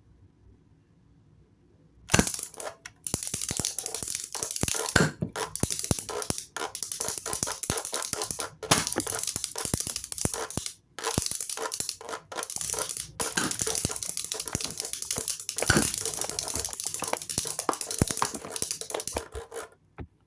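Dense crackling, crinkling noise, like material being crumpled or crushed close to the microphone. It starts about two seconds in and goes on with a few short breaks until just before the end.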